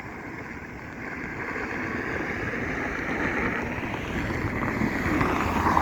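Road traffic noise: a vehicle passing by, its rushing sound building steadily to the loudest point near the end.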